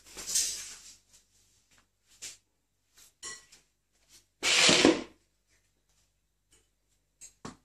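A cat chasing a small ball over a tiled floor: scattered light knocks and clicks, with two short rushes of scuffling noise, one at the start and a louder one about halfway through.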